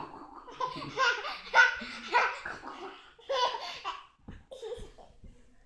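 Toddler laughing in several bouts of giggling while an adult plays with and tickles them.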